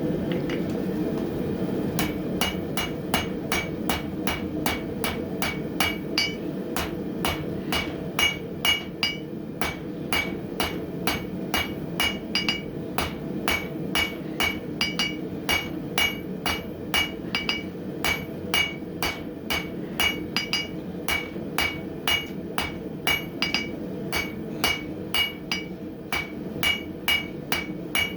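Hand hammer striking hot coil-spring steel on an anvil, about two blows a second starting a couple of seconds in, each blow ringing briefly; the smith is drawing the steel out. A steady forge roar runs underneath.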